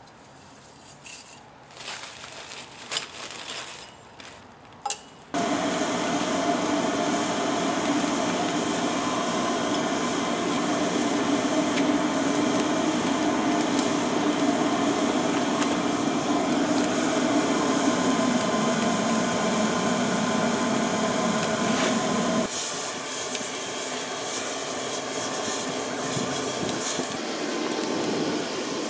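A few light clinks and rustles, then about five seconds in an electric blower that looks like a hair dryer switches on and runs steadily, forcing air through the pipe into the lump-charcoal kiln to bring it up to melting heat. Near the end its tone shifts and it gets slightly quieter.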